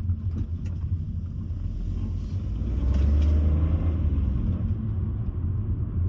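Car driving, heard from inside the cabin: a steady low engine and road rumble, with the engine speeding up and getting louder for about a second around three seconds in.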